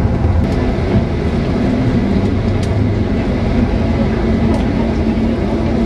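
Steady engine hum and road rumble heard from inside a moving vehicle.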